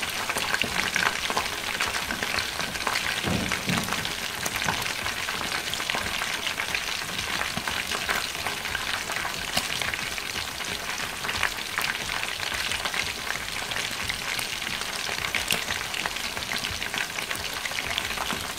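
Chicken halves frying in hot oil in a wok over high heat: a steady sizzle with constant fine crackling.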